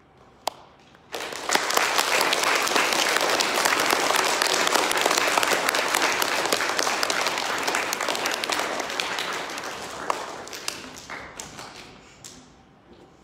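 Applause from a group of people, with many hands clapping together. It starts about a second in and dies away over the last few seconds. One sharp tap comes just before it.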